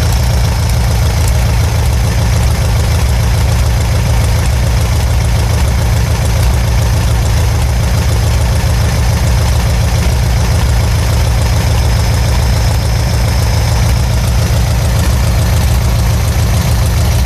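Air-cooled Volkswagen-type flat-four engine idling steadily at an even speed, sounding pretty good for an engine that has run only once in the last ten years.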